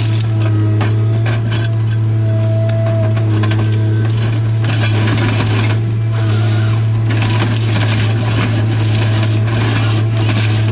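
Tigercat 855C harvester's engine running steadily, heard from inside the cab. Over it, the LogMax 7000 harvester head and its hydraulics crackle and rattle as it feeds and processes a hardwood stem, busiest from about halfway through.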